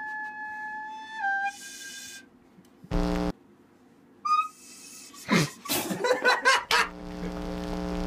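A small handheld wind instrument plays a held, whistle-like note that drops a step about a second in and stops around two seconds in. A short loud buzz follows about three seconds in, then a burst of scratchy, crackling noises, and a steady low electric buzz takes over for the last second.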